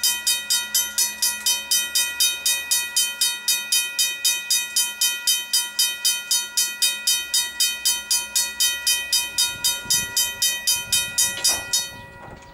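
Griswold mechanical level-crossing bell ringing rapidly and evenly, about four strikes a second, then stopping abruptly near the end. A low rumble rises in the seconds before it stops.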